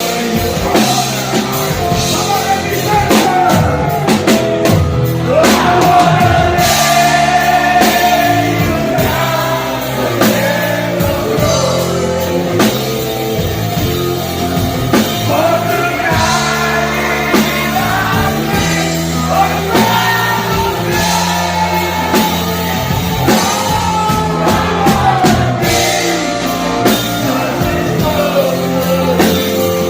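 A man singing a song over band accompaniment, with long held notes that slide between pitches.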